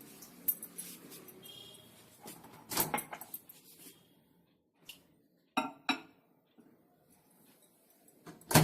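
A few separate clinks and knocks of a cup and kitchenware being handled as the mug cake goes into the microwave, the loudest knock near the end.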